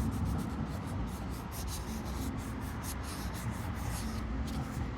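Applicator rubbing the first-step polishing cream over a foggy plastic camera lens by hand, in quick repeated back-and-forth strokes.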